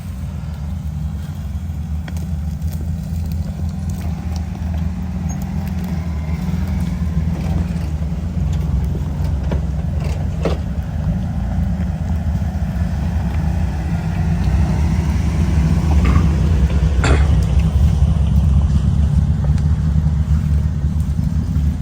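Jeep engine running steadily at low revs while crawling a trail, getting louder about two-thirds of the way in. A few short knocks come about halfway through and again a little later.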